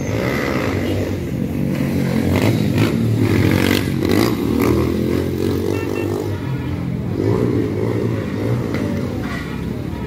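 Street traffic with car engines running close by, a taxi's engine passing right beside the microphone. A few short knocks and clatters come around the middle.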